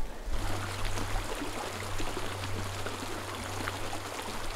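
Small meadow creek trickling steadily, with a low steady hum underneath that fades near the end.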